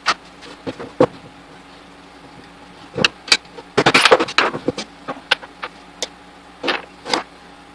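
Scattered metal knocks and clanks as the motor housing of a vintage KitchenAid 3B stand mixer is worked loose and lifted off its pedestal, with a burst of rattling clatter about four seconds in.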